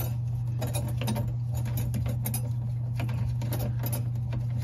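Plastic pivot-rod nut on a pop-up sink drain being unscrewed by hand: light, irregular clicks and scratches of the threads and fingers, over a steady low hum.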